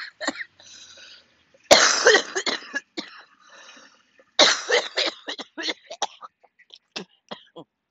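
A woman coughing: two hard bouts a little under three seconds apart, each trailing into shorter coughs, then a run of smaller coughs that fade out near the end.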